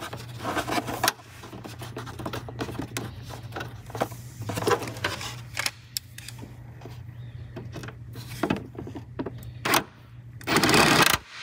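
Small metal clicks and scrapes of a nut being threaded onto a battery-cable stud and tightened with a hand ratchet, over a steady low hum, with a louder rush of noise near the end.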